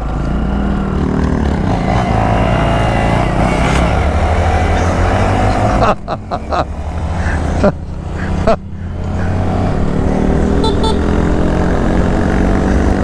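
Honda Monkey 125's single-cylinder four-stroke engine running while riding along, its pitch rising and falling with the throttle. About halfway through it drops out briefly several times, as the throttle is shut.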